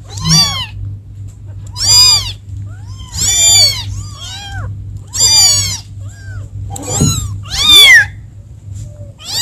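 Young kittens meowing over and over: high-pitched calls that rise and fall in pitch, a loud meow about every one to two seconds with fainter ones in between.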